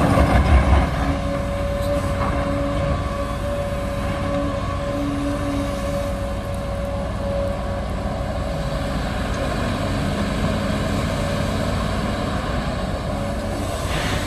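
LiuGong crawler excavator working as it digs: its engine running steadily, with a steady whine over it through the first half.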